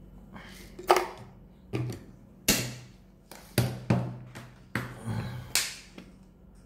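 A man coughing repeatedly, about ten sharp coughs over some five seconds, choking on a spoonful of dry powder eaten straight from the tub.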